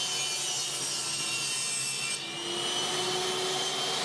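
Table saw running and cutting marine plywood, a steady whine with sawing noise. The sound changes abruptly, with a brief dip in level, about two seconds in.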